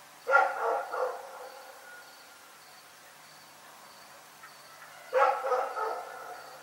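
A dog barking in two short bouts of two or three barks each, the first just after the start and the second about five seconds in. Crickets chirp faintly and evenly in the background.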